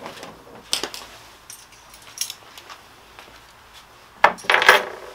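Small metal fittings clinking as they are handled and set down on a wooden workbench: a few light clicks, then a louder clatter about four seconds in.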